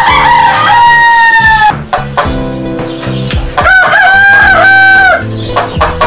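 Rooster crowing twice, a long held call at the start and another from about three and a half seconds in, with short clucks between, over background music.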